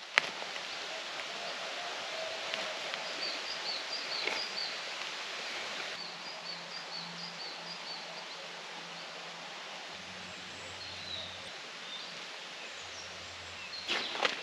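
Forest ambience: a steady background hiss with a small bird's series of short, high chirps a few seconds in and again midway. Rustling in dry leaf litter and footsteps near the end.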